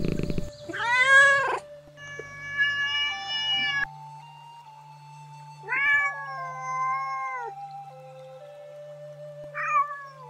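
Domestic cat meowing several times: a short meow rising and falling about a second in, a longer drawn-out meow around six seconds in, and a brief one near the end, over soft background music with a slow low pulse.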